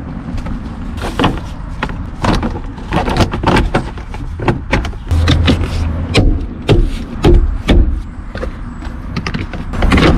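Plastic interior trim panels of a 2018 Subaru Impreza being handled and pushed back into place on the door pillar and sill, a run of irregular clicks and knocks with a few heavier thumps near the middle.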